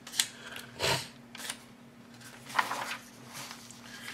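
Paper pages of a model-kit instruction booklet rustling as they are handled and turned by hand: a few short crinkles, the loudest about two and a half seconds in.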